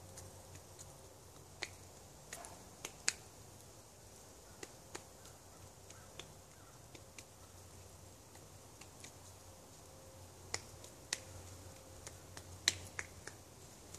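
Irregular sharp clicks and snaps, about twenty of them, scattered unevenly over a faint low background; the loudest come about three seconds in and near the end.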